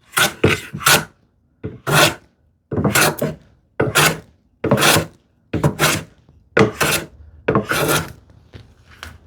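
Hand plane taking about nine quick passes over small wooden filler pieces, roughly one shaving stroke a second, each a short scraping hiss, stopping about eight seconds in.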